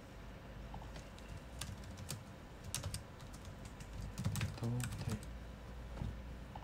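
Computer keyboard typing: scattered, irregular key clicks as a short heading is typed. A brief low murmur of voice comes about four seconds in.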